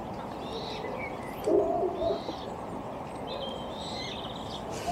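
Birds calling: short high chirps from small birds scattered throughout, and a louder, lower call about one and a half seconds in, over a steady low background noise.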